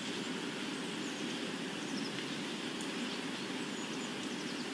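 Ambient nature soundscape: a steady, even rushing noise with a few faint, short bird chirps high above it.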